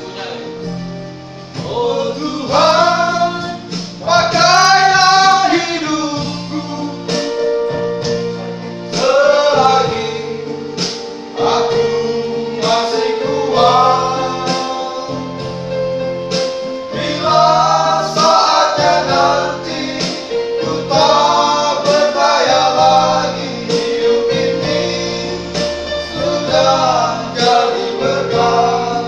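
A small group of men singing a church song together, over sustained low notes from an accompanying instrument.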